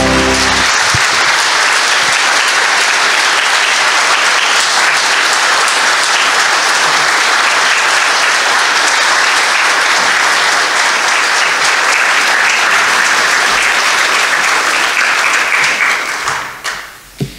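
Congregation applauding steadily, dying away near the end, just after the last note of a musical performance cuts off in the first second.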